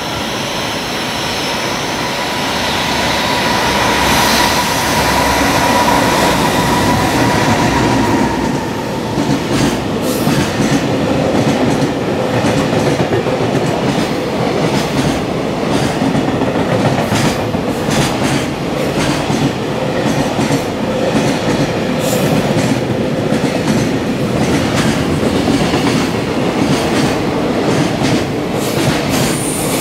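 Long container freight train running through a station at speed, its wagons' wheels clattering over the rail joints in a fast, continuous run of clicks. A steady whine sounds over the first eight seconds, then fades.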